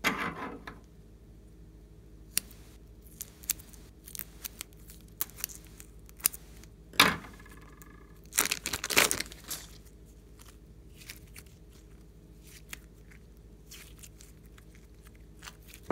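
Plastic piping bag of clay crinkling and tearing as hands pull it open, with scattered small clicks and crinkles; the loudest rips come about seven seconds in and again around nine seconds in.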